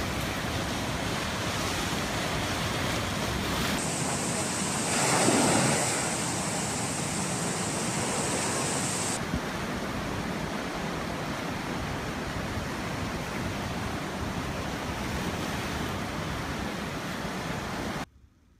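Steady rushing noise of floodwater with wind buffeting the microphone, changing abruptly twice and swelling briefly about five seconds in, then cutting off suddenly near the end.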